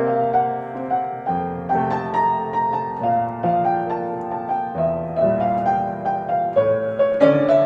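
Piano music: a slow melody over held chords, with the bass note changing every second or two.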